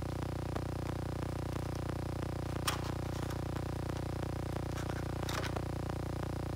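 A steady electrical hum with faint, evenly spaced ticking, and two short clicks or scrapes of small handwork, one a little under three seconds in and one about five seconds in.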